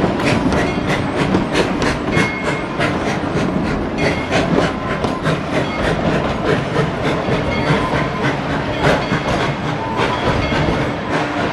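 A train's passenger car rolling along the track, its wheels clicking and rattling steadily over the rail joints with a continuous rumble.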